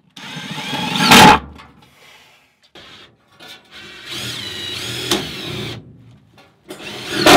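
Cordless drill driving screws into a wooden floor joist to fasten a metal hanger strap, in three short runs: the first rises in pitch for about a second, a longer one follows midway, and a short one comes near the end.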